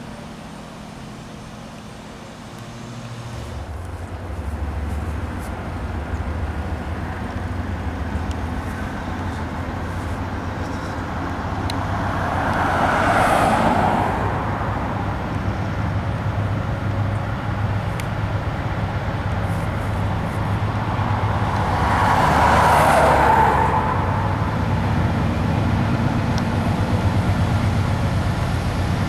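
Steady low engine rumble that comes in about three seconds in, with two road vehicles passing by, about thirteen and twenty-three seconds in.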